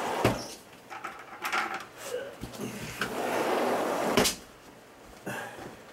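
Sharp knocks and clunks of containers being handled, with a rush of noise lasting about a second a little past the middle that ends on a knock.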